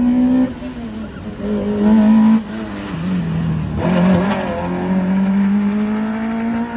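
A small hatchback race car's engine revving hard through a cone slalom, climbing in pitch, dropping off sharply twice as the driver lifts or shifts, with a brief wavering tyre squeal about four seconds in as it turns, then pulling and climbing again.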